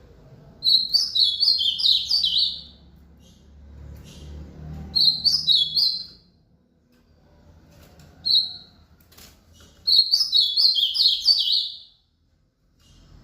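Ultramarine grosbeak (azulão) singing: three rapid phrases of quick chirping notes, each one to two seconds long, with a single short note before the last phrase.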